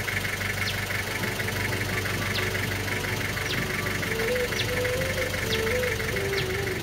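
Safari vehicle's engine idling steadily under a fast, even pulsing buzz and a few short high chirps. A faint melody of held notes comes in about four seconds in.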